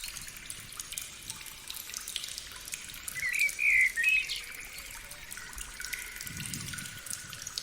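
Water trickling and dripping, with a short bird call a little over three seconds in.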